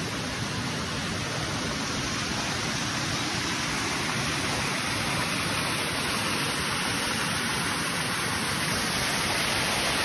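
Waterfall water rushing steadily down rock cascades and splashing into a pool, a little louder toward the end.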